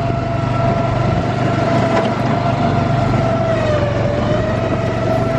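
Go-kart motor running steadily under way, its pitch sagging briefly about four seconds in and then climbing back.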